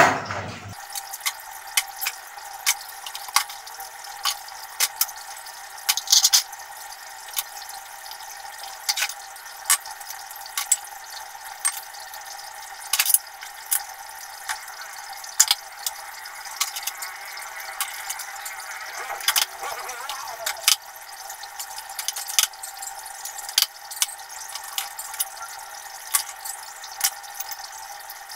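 Dishes being washed by hand in plastic basins: water splashing and dripping, with frequent short clinks and knocks of plates and bowls.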